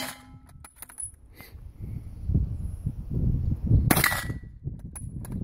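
Krag-Jørgensen bolt-action rifle firing. The tail of one shot is heard at the very start, a few sharp clicks follow within the first second, and a second loud shot comes about four seconds in with a brief ring after it. A low rumble of wind on the microphone runs underneath.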